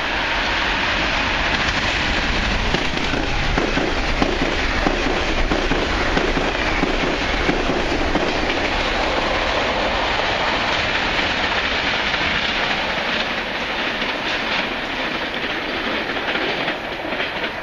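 Electric-hauled passenger train of stainless-steel coaches passing at speed without stopping: a steady rush of wheels on rail with faint knocking, loudest as the cars go by and fading near the end as the train pulls away.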